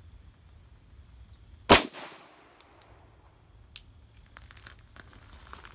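A single shot from a Glock 17L with a 6-inch barrel firing 9mm +P+ ammunition, about two seconds in, with a short echo dying away after it.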